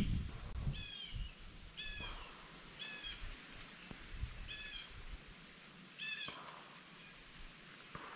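A bird calling repeatedly: about six short, slightly falling calls, roughly one a second, that stop about six seconds in. A low rumble of wind or handling noise sits under the first second.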